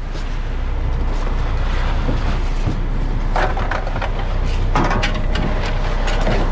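A crab boat's engine running steadily, with a clatter of hard knocks and rattles from about three seconds in as crabs and gear are handled on deck.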